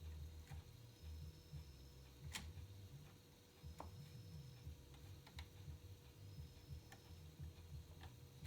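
Faint, scattered light clicks and taps of small parts being handled, with one sharper click about two and a half seconds in. They are heard over a low steady background hum while a USB player board is being mounted in an amplifier chassis.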